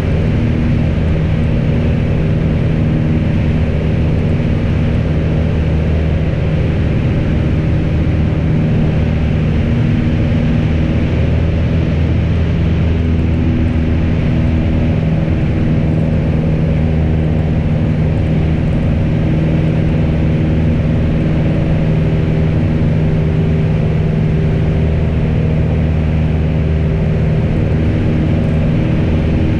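Piper PA-28's piston engine and propeller running steadily in flight, a loud, constant low drone with no change in power.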